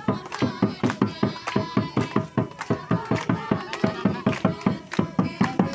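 Santali barrel drums (tumdak') played by hand in a fast, steady beat of about four to five strokes a second, with voices over the drumming.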